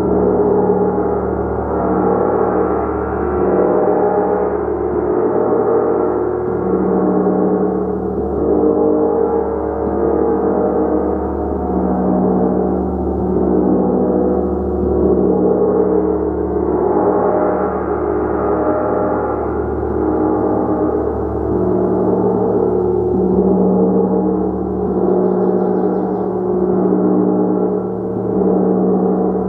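Large gong played continuously with a mallet, building a dense, sustained wash of overlapping ringing tones that swells and eases roughly every two seconds.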